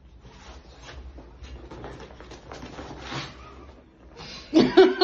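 Faint rustling and soft scuffing of hands rubbing a French bulldog's fur on a cloth-covered massage table. Near the end, a woman bursts into loud laughter.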